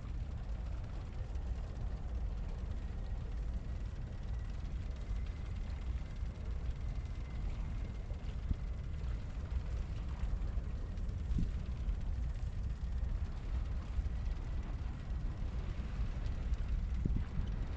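Wind buffeting a small action-camera microphone outdoors: a steady low rumble with a faint hiss above it and a few small clicks.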